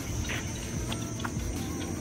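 Steady high-pitched insect drone, with a few short faint chirps over a low outdoor rumble.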